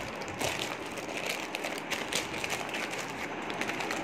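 Thin clear plastic packaging bag crinkling and rustling in irregular little crackles as a mug is unwrapped from it.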